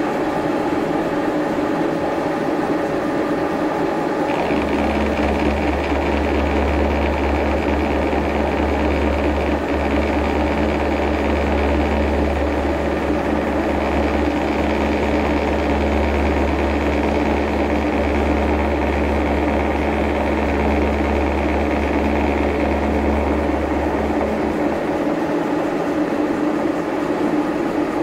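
Horizontal milling machine running, its arbor-mounted side-milling cutter taking a slot cut through a steel block. A steady mechanical grind runs throughout. A deeper hum joins about four seconds in and stops about three seconds before the end.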